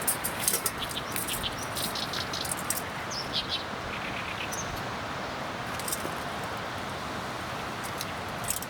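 Wood campfire crackling, with many sharp little pops that come thick in the first few seconds and again near the end, over a steady hiss. A few short bird chirps come in about the middle.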